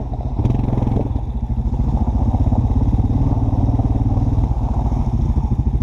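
Honda ATV engine running steadily, close up, with a fast, even pulse.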